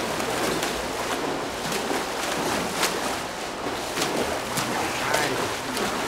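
Two swimmers sprinting freestyle, their arm strokes and kicks churning and splashing the pool water, with sharp slaps of hands hitting the surface now and then.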